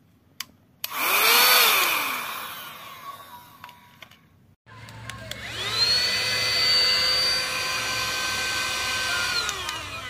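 Portable mini 2-in-1 handheld vacuum cleaner's small motor switched on twice: the first time its whine rises and quickly sinks away; the second time it spins up, runs at a steady high whine, and winds down near the end.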